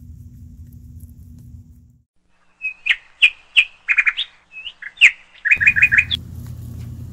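A run of loud bird chirps and tweets, short calls with a few rapid trills, on a sudden dead-silent background. The low rumble of the outdoor recording cuts off completely about two seconds in and comes back near the end.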